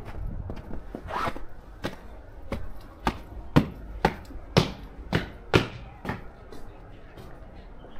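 Footsteps crunching in fresh snow, about two steps a second, at a walking pace. They are loudest in the middle and fainter near the end.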